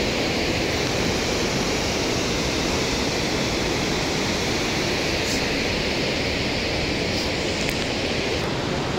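Steady rushing of a white-water river tumbling over rocks in the gorge below.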